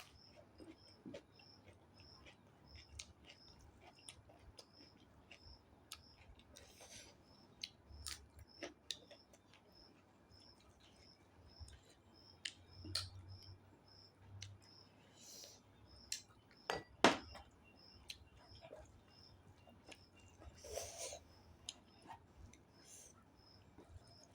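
Quiet eating: scattered clicks and short rustles of chewing and utensils against a plate, with one sharper click about two-thirds of the way through. A faint high chirp repeats about twice a second in the background.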